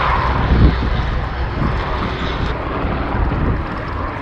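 Goodyear FG-1D Corsair's Pratt & Whitney R-2800 radial engine running at takeoff power as the fighter lifts off and climbs out low, a steady heavy drone with wind rumbling on the microphone.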